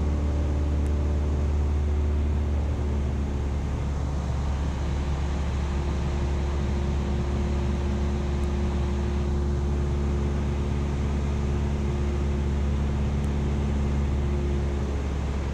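Single-engine light airplane's engine and propeller droning steadily, heard inside the cabin, with a slight shift in its tone a few seconds in.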